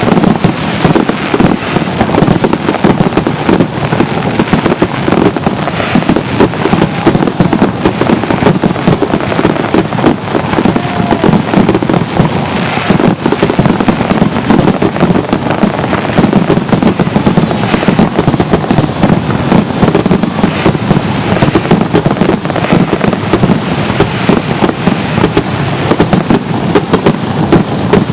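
Aerial fireworks: a dense, continuous barrage of overlapping bangs and crackles with no pauses, loud throughout.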